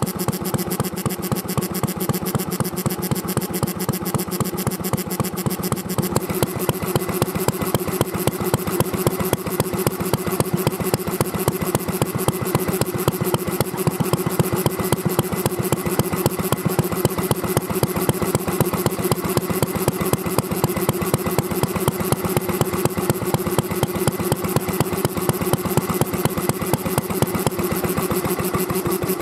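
Kubota Auto Engine ON-type kerosene stationary engine (2.5–3 hp, rated 1600–1800 rpm) running steadily, with a fast, even firing beat.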